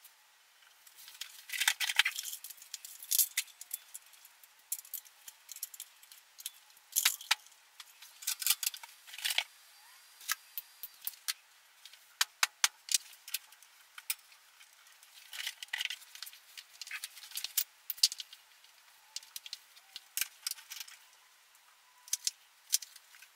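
Small metal parts and fittings clinking and rattling in irregular bursts of short clicks as hardware is handled and fitted together.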